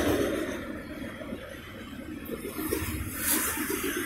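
Freight train of autorack cars rolling past, its wheels clattering over the rails more quietly than the loud stretch just before, with a brief louder swell about three seconds in.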